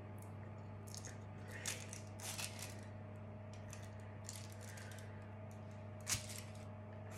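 Scattered light clicks and clatters of kitchen items being handled, the sharpest about six seconds in, over a steady low hum.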